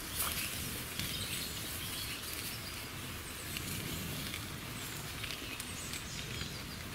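Sausages sizzling in a frying pan over a wood campfire, with the fire crackling, a light knock just after the start, and birds chirping in the background.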